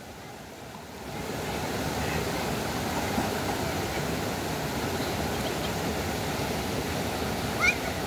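Steady rush of flowing river water, swelling in about a second in. A short rising high call sounds near the end.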